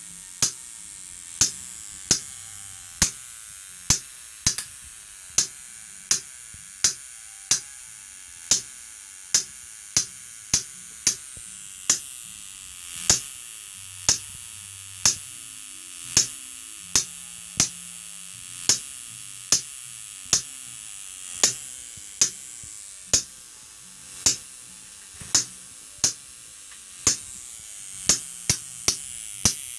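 High-voltage spark discharges from a homemade 12 kV Cockcroft-Walton multiplier, snapping in a steady series of sharp cracks about one to one and a half a second, coming faster near the end, over a steady hiss.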